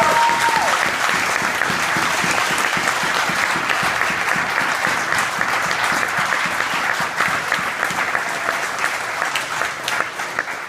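Audience applauding: many people clapping at once, with a voice calling out at the very start, and the clapping thinning near the end.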